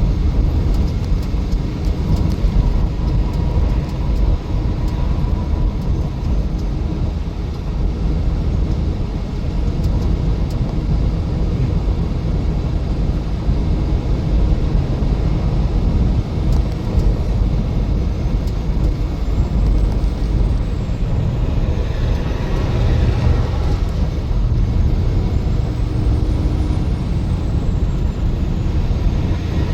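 Steady road and engine noise heard from inside a vehicle driving on the highway, mostly a low rumble, with a short swell of higher hiss about two-thirds of the way through.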